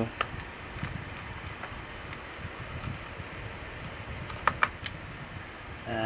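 Small screwdriver driving a screw into a laptop's drive caddy, making scattered light clicks and ticks, with a few sharper clicks about four and a half seconds in.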